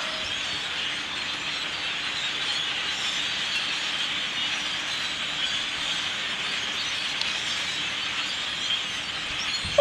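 A large flock of crows calling all at once, their calls blending into a steady din.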